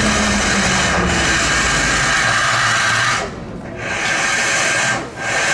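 DT668 steam locomotive (a D51-type) letting off steam: a loud, steady hiss that breaks off briefly about three seconds in and again near the end, over a low rumble that fades during the first two seconds.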